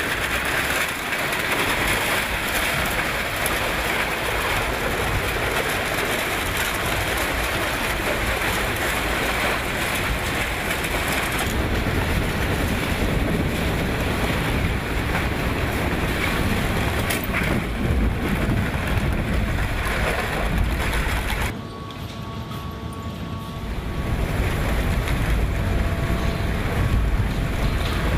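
Heavy crushing machinery running with a loud, steady rushing noise that changes abruptly twice, about 11 and 21 seconds in.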